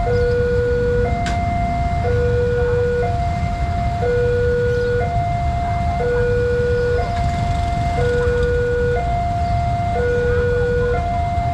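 Railway level-crossing warning alarm from the loudspeaker on the signal post: an electronic two-tone signal alternating between a lower and a higher note, each held about a second, warning that a train is approaching. A steady low rumble of waiting motorcycle traffic runs underneath.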